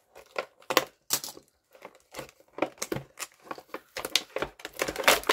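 Stiff plastic blister packaging being slit with a utility knife and pried apart by hand: a run of sharp, irregular clicks and crackles that come thicker near the end.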